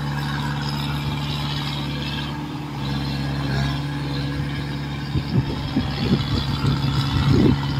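Kubota DC105X combine harvester and a rice-transport cart, their diesel engines running steadily, as the combine tows the cart through the mud.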